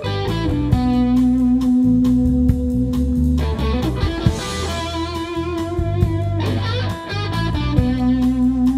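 Electric guitar solo on a Les Paul-style guitar: long held notes, one wavering with vibrato in the middle, over a live rock band's drums and bass.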